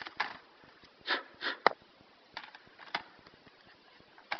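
Light clicks and taps of a replacement laptop keyboard being handled and set in place, with two short hissing sounds and a sharp click around a second and a half in.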